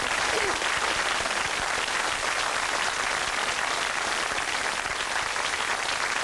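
Studio audience applauding steadily: many people clapping at once.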